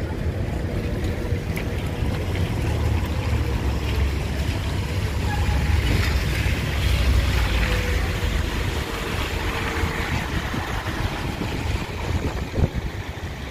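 Wind gusting across the microphone with a low rumble over a steady rush of heavy rain, the rush swelling in the middle; a brief knock near the end.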